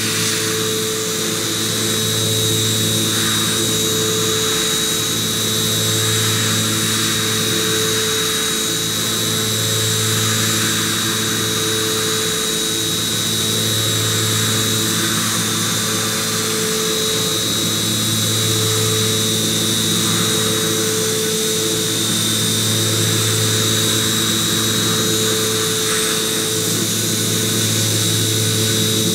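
CNC vertical machining center milling hardened C45 steel (42 HRC) with a 12 mm end mill on an iMachining toolpath: steady spindle and cutting noise with a constant high whine. The low hum of the cut swells and fades about every two and a half seconds as the tool moves through its passes.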